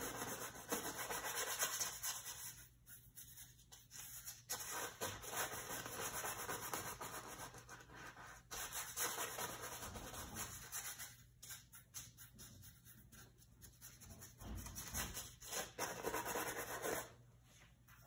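Paintbrush working oil paint across a canvas: a dry, scratchy rubbing of bristles in stretches of strokes, broken by a few short pauses.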